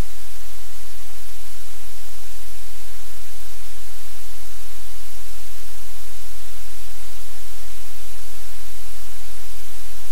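Loud, steady hiss of static-like noise, even and unchanging, with a low hum underneath.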